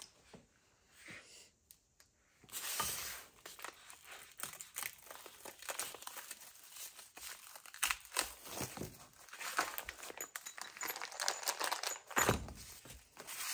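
Plastic packaging wrap being crinkled and torn open by hand. It starts about two and a half seconds in and crackles on in a dense run, loudest near the end.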